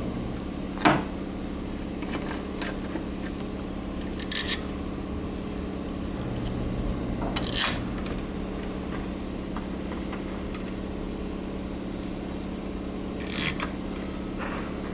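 Screwdriver turning the mounting screws into a metal lock back plate, with a few scattered sharp metallic clicks and scrapes over a steady low hum.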